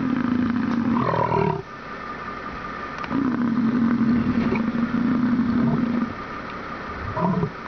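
American bison giving long, low, steady grunts: one of about a second and a half at the start, then a longer one of about three seconds from about three seconds in.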